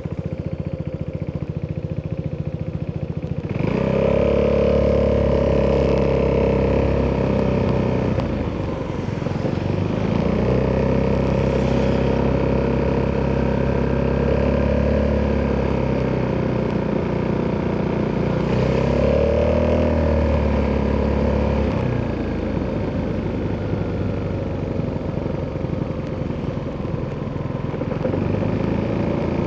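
Italjet Dragster 200 scooter's single-cylinder four-stroke engine through an Akrapovic exhaust, running low at first, then pulling away under throttle about four seconds in. It pulls in several surges with brief let-offs, then drops back to a lower steady note a little past two-thirds of the way through.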